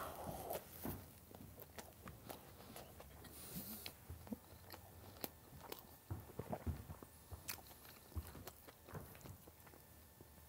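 Faint chewing of a fried chicken burger, a scatter of small irregular crunches and mouth clicks.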